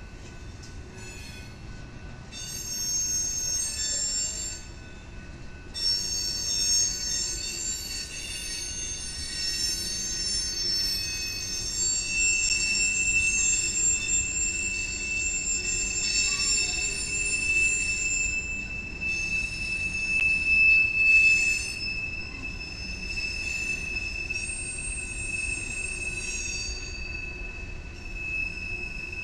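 Freight train of tank cars and covered hoppers rolling past, its steel wheels squealing in several steady high-pitched tones that come and go. The squeal is loudest from about six seconds in until about three-quarters of the way through, over a low rumble of the passing cars.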